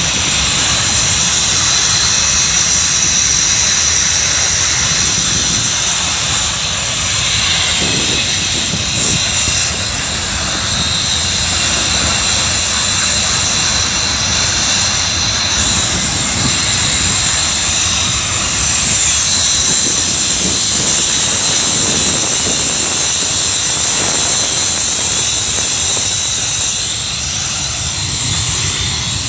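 Gas field plant running: a steady loud roar with a dense hiss and high whistling tones over a low rumble, without a break.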